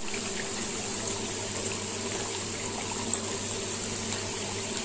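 Hot oil sizzling steadily around pieces of maida namkeen dough deep-frying in a pan.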